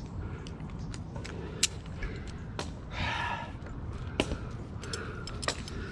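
A tree climber's rope gear, a Zigzag friction device and carabiners, clicking and clinking a few times as the rope is handled. There is a heavy breath about three seconds in, over a steady low rumble.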